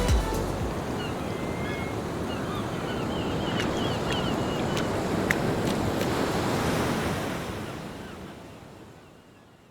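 Sea waves washing on a shore, mixed with wind, with a few faint high chirps in the first half; the sound fades out over the last couple of seconds.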